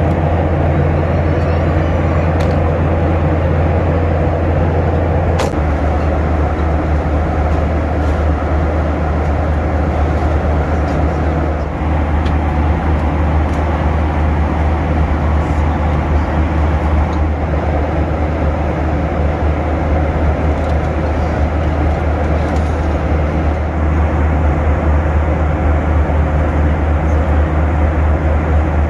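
Steady cabin noise of a Boeing 737-800 in flight: the low drone of the jet engines under a constant rush of airflow. The low drone shifts slightly about five seconds in.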